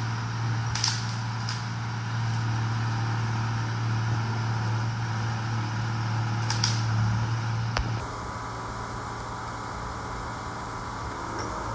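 Excavator's diesel engine running steadily as the machine tracks along a bush trail, with a few sharp cracks over it. The sound drops and changes abruptly about eight seconds in.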